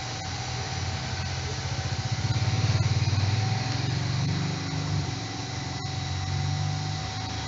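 Electric water pumps of a reverse-osmosis refill-water depot running with a steady hum and whine. A louder, engine-like throbbing swells about two seconds in and fades by five.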